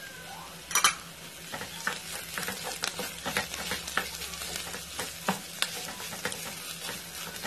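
Wooden spoon stirring and scraping through rice filling with tomato paste and parsley in a frying pan on the stove, the filling sizzling steadily. A single sharp knock comes a little under a second in, then quick irregular scrapes of the spoon against the pan.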